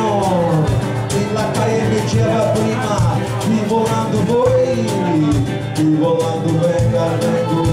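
Live band playing a pagode tune: drum kit keeping a steady beat on the cymbals, with guitar and low bass notes under a melody line that slides up and down in pitch.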